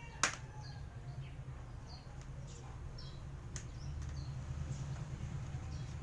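A sharp plastic snap as a laptop case clip is pried loose with a card, then a fainter click about three and a half seconds in. A low hum runs underneath, with faint short high chirps scattered throughout.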